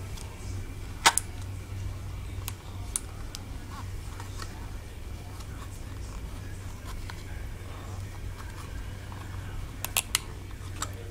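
A few sharp clicks and taps from handling the plastic box and tools, the loudest about a second in and a quick pair near the end, over a steady low hum.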